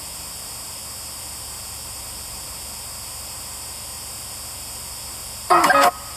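Steady radio static hiss from a spirit box sweeping through stations, broken by a short voice fragment about five and a half seconds in.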